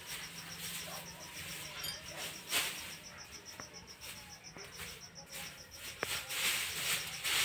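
Dry rice straw rustling and crackling as it is walked on and gathered into a bundle by hand, with an insect chirping steadily in rapid, even high pulses.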